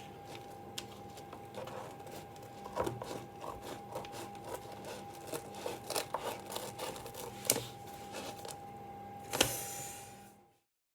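Irregular light clicks and knocks over a faint steady hum, ending in a short rustle before the sound cuts off.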